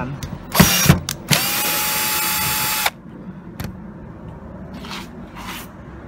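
Cordless drill-driver spinning up and running steadily with a whine for about a second and a half, then stopping abruptly, as it drives out a screw from a washing machine's back panel. A couple of sharp knocks come just before it, and a single click follows.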